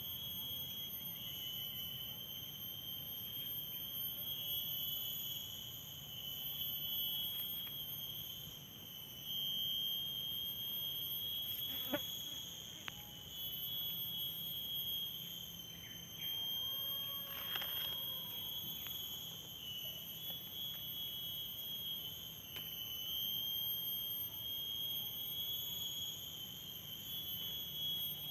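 Insects in undergrowth keeping up a steady, high-pitched drone that wavers slightly in strength, with a single faint click midway.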